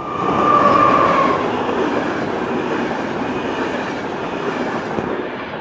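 Electric locomotive hauling passenger coaches passing at speed, a loud rush of wheel and rail noise. It peaks as the locomotive goes by in the first second or two, then runs on steadily as the coaches pass. A thin steady high tone fades out about a second in.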